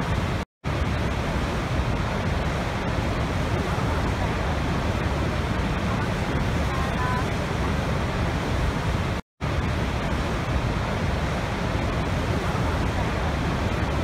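Steady rushing of a very large waterfall, Niagara's Horseshoe Falls, heard from the brink: a dense, even wash of water noise, heaviest in the low end. The sound cuts out completely twice, each time for a split second, about half a second in and about nine seconds in.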